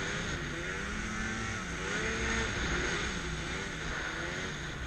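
Arctic Cat M8000 snowmobile's 800 cc two-stroke twin running hard through deep powder, its pitch rising and falling several times with the throttle, over a steady hiss.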